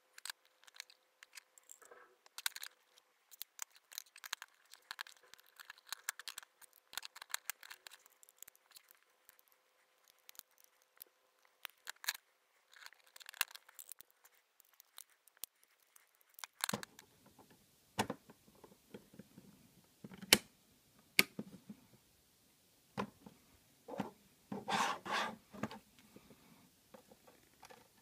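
Clear acrylic case panels clicking, tapping and scraping against one another as they are fitted together by hand. After about two-thirds of the way there are sharper, louder clicks, with a quick run of rattling clicks near the end.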